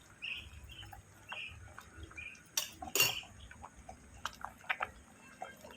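Metal kitchen utensils and pots clinking and knocking while the decoction is handled, with scattered light clinks and two sharp strikes about halfway through.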